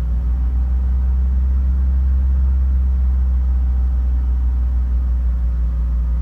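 Mercedes-Benz E500E's 5.0-litre V8 held at about 2,500 rpm on light throttle, a steady low drone with no stumble yet from the persistent misfire being chased.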